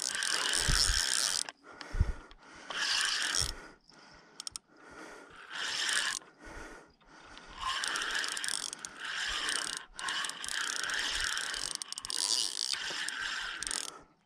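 Fishing reel being cranked in spurts to bring in a hooked carp that is fighting on the line, the reel's mechanism running in stretches of a second or two with short pauses between.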